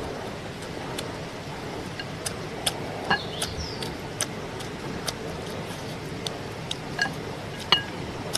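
Wooden chopsticks tapping and clinking against ceramic bowls in a dozen or so separate sharp clicks, some with a short ring, over a steady hiss.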